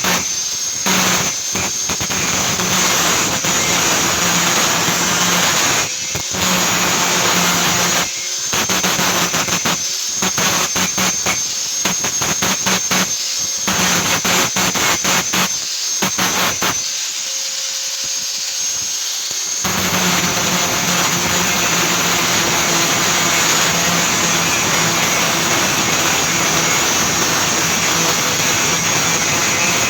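Harsh, steady metalworking noise on scrap steel from an electric tool, with a high steady whine over it. It breaks off briefly many times in the first half and drops to a quieter, lower sound for a few seconds a little past halfway.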